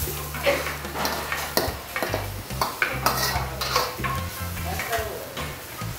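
Steel ladle stirring and scraping chicken curry around a black iron kadai, with irregular metal scrapes and clinks over the sizzle of the curry cooking in its masala.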